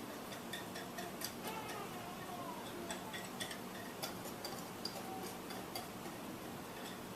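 A metal spoon clicking and scraping against a bowl and baking dish as cornbread batter is scooped out and spread over a casserole, in light irregular taps over a faint steady hum.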